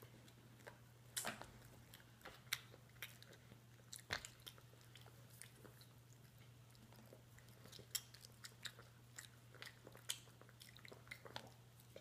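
Faint chewing and biting into soft pastry rolls: scattered short mouth clicks and smacks over a steady low hum.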